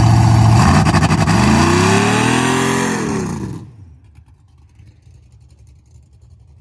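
GM G-body car's engine revving hard in a burnout attempt despite a bad transmission. The pitch climbs, drops back, then the sound cuts off sharply about three and a half seconds in.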